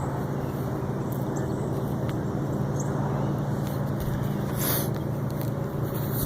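A steady low hum made of a few held tones, under a constant rushing noise, with scattered faint clicks and a short noisy burst about a second and a half before the end.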